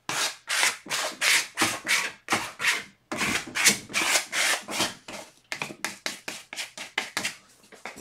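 A plastic card scraping acrylic paint across a stretched canvas, in repeated rubbing strokes about two to three a second. The strokes turn quicker and lighter after about five seconds.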